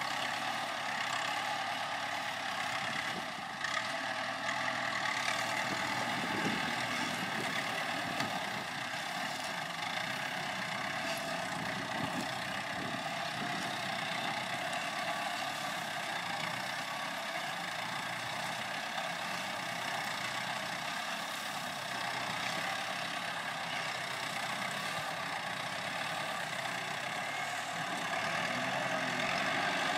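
Kubota tractor's diesel engine running steadily while it works a hydraulic sugarcane grab loader.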